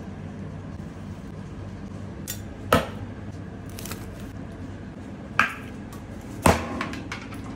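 Meat cleaver chopping through rolled kebabs onto a wooden board: a few sharp knocks, the loudest about two and a half seconds in and two more near the end, over a steady low hum.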